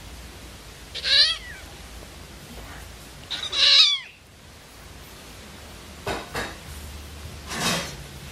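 Kittens meowing during rough play: two short, high-pitched, falling cries, about a second in and again near the middle, the second louder. A few softer, noisier short sounds follow later.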